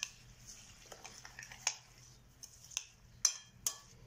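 A fork stirring eggs and milk into chopped green onion and parsley in a glass bowl, clinking sharply against the glass four or five times, mostly in the second half.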